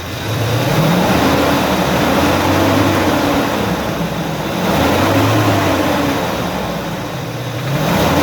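UAZ Patriot engine being revved up and eased off three times under load, with its rattle at crankshaft speed that the mechanic takes for piston slap or a worn connecting-rod pin.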